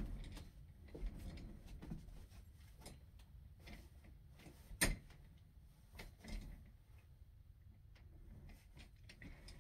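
Quiet room with faint rustling and scattered light knocks as a booted foot is moved about and set on a padded chair, with one sharper knock about five seconds in.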